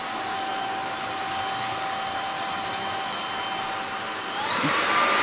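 Onson A10 Pro cordless vacuum in handheld mode running with a steady whine as it sucks up oatmeal and cereal. Near the end its motor speeds up and the whine rises in pitch and gets louder as it is switched to high power mode.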